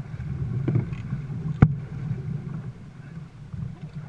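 Dragon boat under paddle: a steady low rumble of wind and water, with sharp knocks about a second apart, the second one loud.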